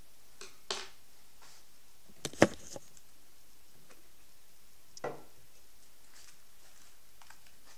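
A few short knocks and clicks of things being handled: one under a second in, a sharper, louder knock about two and a half seconds in, and another about five seconds in.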